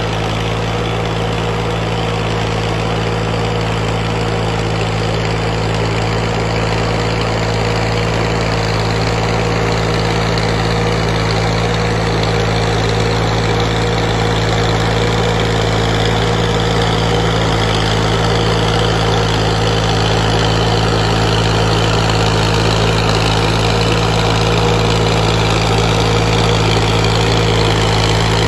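Massey Ferguson 240 tractor's three-cylinder diesel engine running steadily as it works through a flooded field, getting gradually louder as it comes closer.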